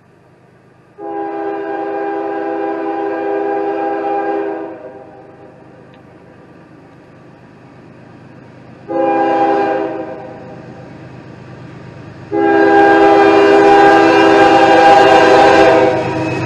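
CSX diesel freight locomotive's air horn sounding three blasts, long, short, then long, as it nears a road crossing. Under the horn the train's rumble grows loud near the end as the locomotive arrives.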